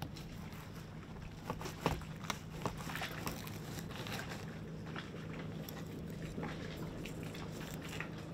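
Fillet knife cutting through a yellowtail snapper on a plastic cleaning table, with scattered small clicks and scrapes as the blade runs along the backbone and ribs, mostly in the first few seconds. A steady low hum underlies it.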